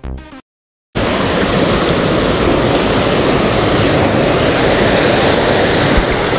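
Starting about a second in, a steady rush of a small mountain stream cascading over rocks close by.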